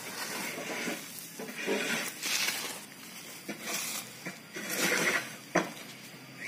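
Hands scooping and turning dry compost in a woven plastic sack: crumbly rustling in about four separate bursts. There is one sharp click about five and a half seconds in.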